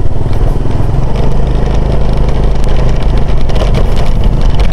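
Motorcycle engine running steadily at low road speed, heard from the rider's seat, with faint scattered knocks from the rough road.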